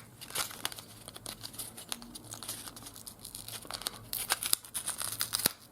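A trading-card pack wrapper being torn open and crinkled by hand: a run of crackly rustles, busier near the end.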